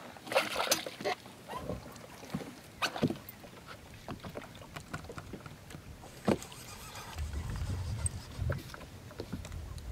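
Irregular clicks and knocks of a catfish rod, reel and boat as the rod is pulled from its holder and a fish is hooked and fought, with a burst of handling noise in the first second. A low rumble joins about seven seconds in.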